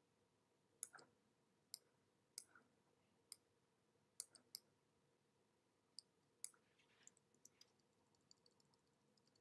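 Faint, scattered clicks of a computer's input controls: about eight sharp ones spread over the first seven seconds, then a run of lighter, quicker ticks near the end, over faint room hum.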